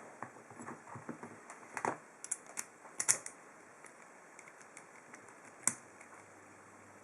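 Small irregular metallic clicks and taps from handling a TESA padlock's half euro lock cylinder and tools as it is taken apart. The sharpest clicks come about three seconds in and again near six seconds.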